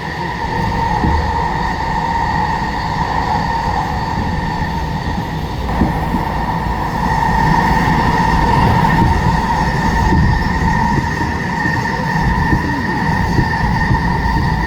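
SkyTrain metro train running on its track: a steady whine over a low rumble of the wheels, getting a little louder about seven seconds in.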